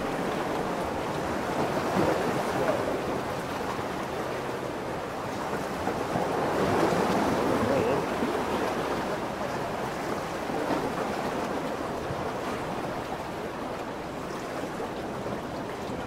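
Lake Michigan waves washing in, a steady rush that swells about two seconds in and again for a couple of seconds around the middle.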